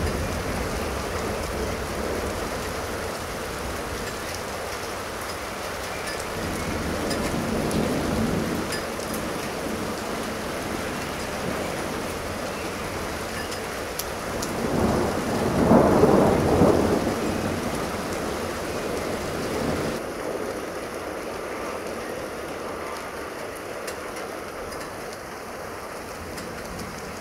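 Thunderstorm: steady rain hiss with rolling thunder. A low rumble swells about seven seconds in, and a louder, longer rumble peaks about halfway through; the rain thins somewhat later on.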